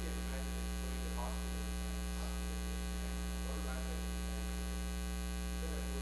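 Steady electrical mains hum with many overtones, a constant buzz on the recording. A faint voice comes through in short snatches now and then.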